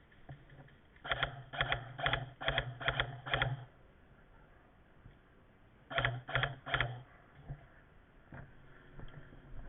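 Airsoft rifle firing single shots: six in quick succession about half a second apart, then a pause, then three more.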